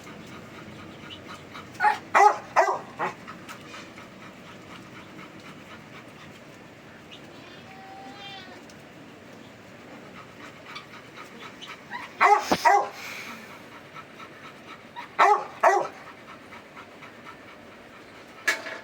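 Beagle puppy yipping in short clusters of two or three high yips, a group about two seconds in, two more groups around twelve and fifteen seconds, and a single yip near the end.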